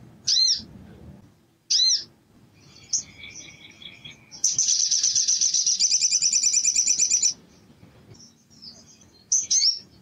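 Male olive-backed sunbird (sogok ontong) singing loudly. It gives two sharp chirps, a softer run of notes, then a rapid trill of about three seconds with its wings spread, and two more chirps near the end.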